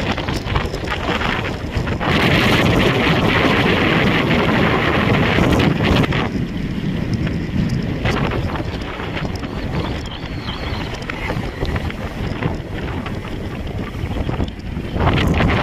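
Wind buffeting the microphone on a moving motorbike, over the rumble of the bike and road. It gets louder about two seconds in and eases off again after about six seconds.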